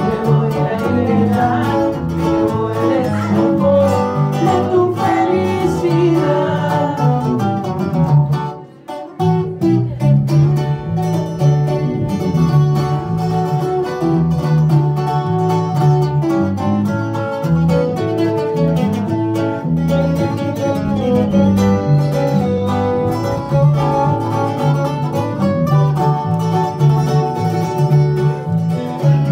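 Live trio music: a twelve-string acoustic-electric guitar and an acoustic guitar playing over an electric bass, with a brief break about nine seconds in.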